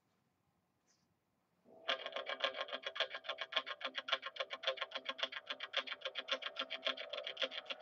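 Intro music starts about two seconds in: a fast, even run of repeated plucked notes over held pitches.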